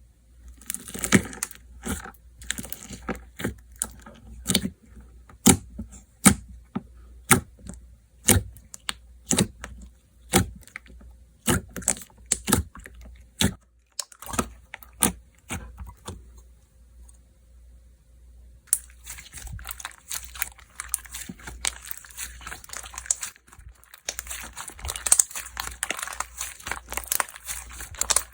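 Slime being pressed, poked and stretched by hand, giving a string of sharp sticky clicks and pops. From about two-thirds of the way in, the handling turns into a denser, continuous crackling.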